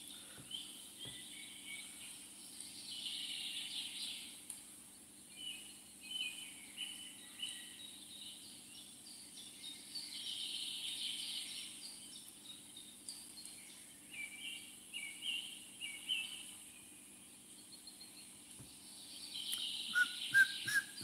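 Small birds chirping, with many short high notes and a few denser bursts of twittering, over a faint steady low hum. Near the end comes a descending run of lower whistled notes.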